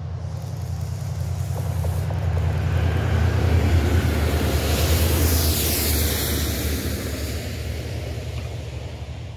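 A locomotive-hauled freight train of tank wagons passes at speed. A low engine drone and a rushing hiss of wheels on rail build to a peak about four seconds in, then fade as the train goes by.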